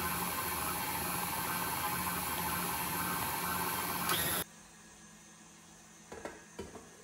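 KitchenAid stand mixer motor running steadily, switched off suddenly about four and a half seconds in. After it stops come two or three light knocks of a stainless-steel mixer bowl being handled.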